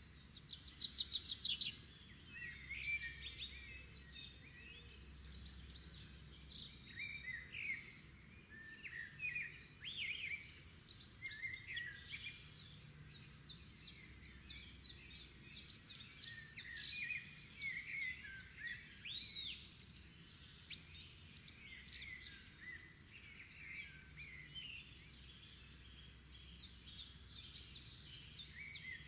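Several songbirds singing and calling over one another, with quick chirps, whistles and trills overlapping throughout, above a steady low background rumble.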